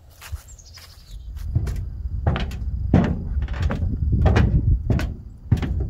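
Footsteps in boots on a hollow, ridged dock gangway, a knock with each step at a walking pace of about three every two seconds, beginning about a second in.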